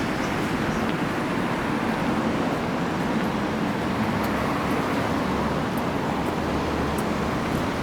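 Steady road traffic noise from a busy city street, passing cars running as a continuous hum.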